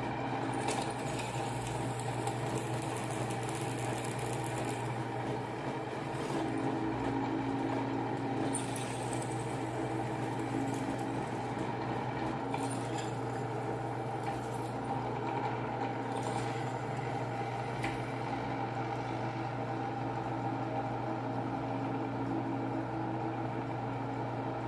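Blender motor running steadily with an even hum, with a few brief scraping sounds on top, and cutting off at the end.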